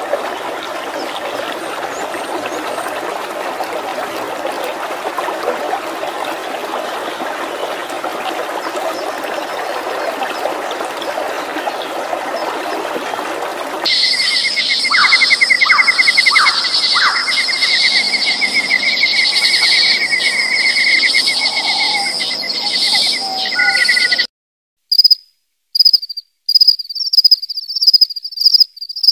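A rocky stream runs over stones for about the first half. It then gives way to a chorus of insects trilling in steady high rattling tones. Near the end this changes to short, shrill cricket-like chirp trains repeating about twice a second, with silences between.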